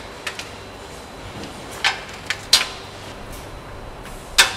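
Loose steel truck wheel bolts on a wire-mesh belt conveyor, clinking sharply against each other and the metal a handful of times, the loudest clink near the end, over a steady low machine noise.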